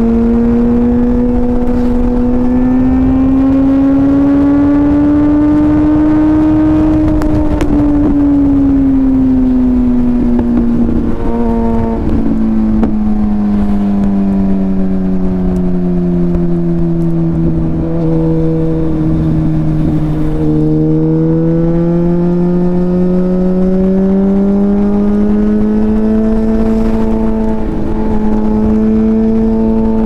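Suzuki GSX-R1000's inline-four engine running under way at a steady throttle. Its note climbs slowly for the first several seconds, sinks to its lowest about two-thirds through, then climbs again. A steady low rush sits underneath.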